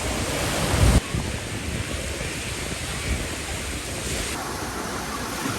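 Sea surf washing on a beach, with wind buffeting the microphone. A heavy gust builds just before a second in and cuts off abruptly.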